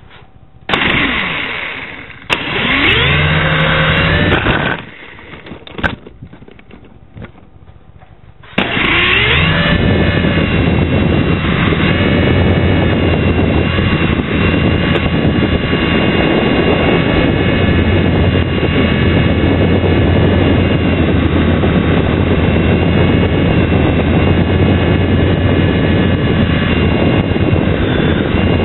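Mini RC helicopter's small electric motors and rotors whirring close to the microphone: two short spin-ups rising in pitch, then from about nine seconds in a steady running sound as it lifts off and flies.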